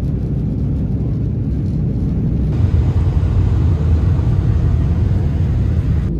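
Jet airliner cabin noise: a steady, loud low rumble of engines and rushing air heard from inside the cabin, with a little more hiss from about two and a half seconds in.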